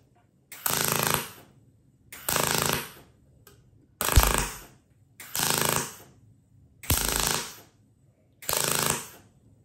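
Aluminum MIG welding arc from a Miller 255 with an Aluma Pro push-pull gun on 20-gauge sheet, struck in six short bursts of under a second each, about one every second and a half. This is stitch welding: the lowest setting runs a little hot for such thin sheet, so a continuous bead would blow a hole through it.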